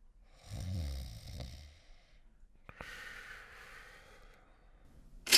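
Snoring for a sleeping cartoon character: a low, rasping snore on the in-breath about half a second in, then a long breathy out-breath around three seconds in. A sudden loud clatter breaks in at the very end.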